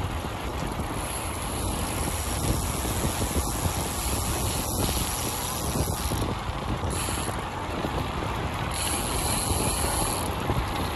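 Road bike's rear freewheel ticking as it coasts, over a steady rush of noise.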